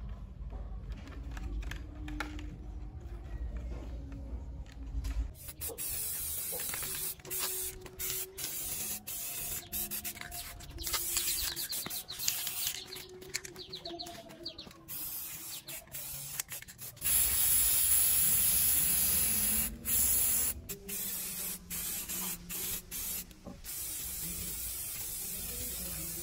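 Aerosol spray-paint can spraying in short hissing bursts, with one longer steady spray, the loudest, about two thirds of the way through.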